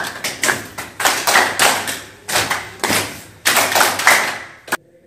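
A small group clapping hands together in rhythm, in runs of about four quick claps with short pauses between, ending with a single sharp clap shortly before the end.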